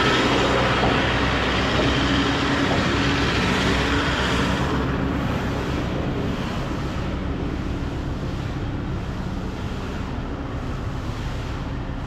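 Engine running steadily at a concrete pump rig, under a broad rushing noise that eases off about five seconds in.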